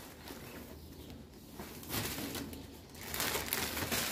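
Clothes being handled and shaken out: irregular rustling of fabric, louder and busier in the last second or so.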